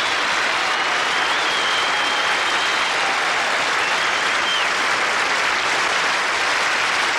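Studio audience applauding steadily after a song ends, with a couple of drawn-out high whistles from the crowd in the first few seconds.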